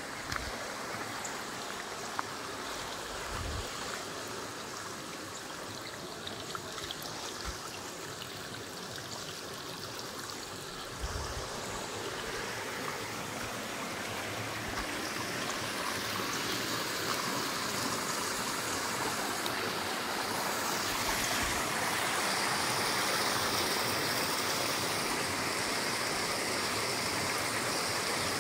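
Overflow water from a full dam running down a stream channel and pouring over a small drop, a steady rush that grows louder from about eleven seconds in. A few low thumps sound under it.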